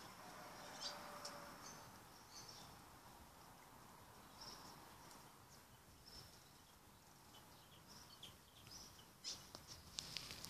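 Near silence with faint, scattered short chirps of distant birds, and a few soft clicks near the end.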